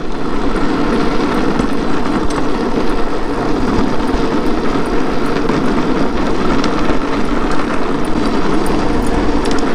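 Steady rushing noise of a drift trike's wheels rolling fast over asphalt as a husky pulls it, mixed with wind on the microphone.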